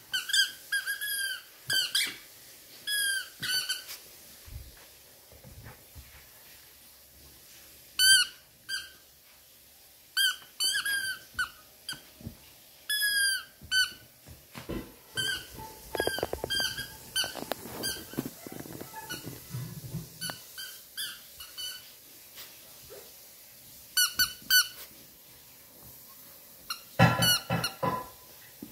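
Squeaker inside a plush toy elephant squeezed again and again by a Bichon Frise chewing it: quick squeaks in clusters of a few at a time, with pauses between. There is a stretch of rustling around the middle.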